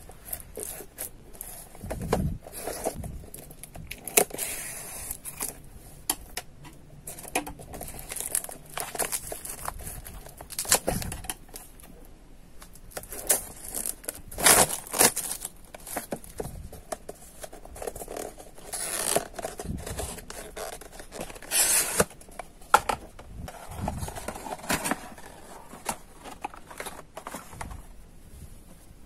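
Scissors snipping at the plastic shrink-wrap on a small cardboard box, with the thin film crinkling and tearing as it is cut and peeled away, among irregular small clicks and rustles of handling.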